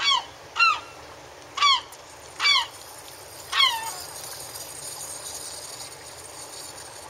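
A bird calling five times over about four seconds, each call short and falling in pitch, followed by a faint steady hiss.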